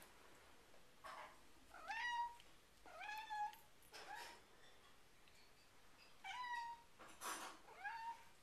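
Domestic cat meowing four times in short calls, each rising in pitch and then holding.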